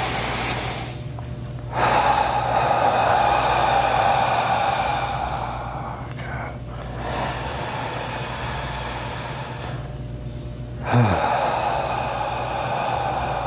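A man breathing deeply and slowly while held in a chiropractic stretch: three long breaths of several seconds each, with a short low voiced sound falling in pitch at the start of the last.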